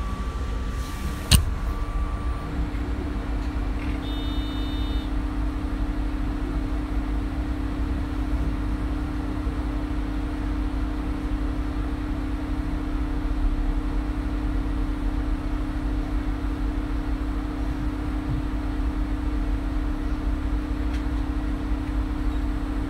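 MAN Lion's City Hybrid city bus running, with a steady low rumble. A steady hum comes in about two and a half seconds in and holds. There is one sharp click about a second in and a short electronic beep about four seconds in.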